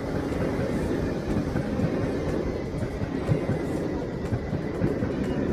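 A motorcycle running steadily along a highway: a low, uneven rumble of engine and road noise.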